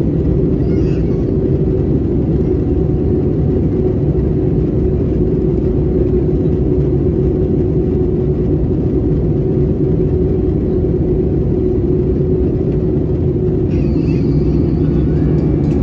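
Airbus A320 cabin noise heard inside at a window seat during the descent: a steady rumble of engines and airflow with a steady hum over it.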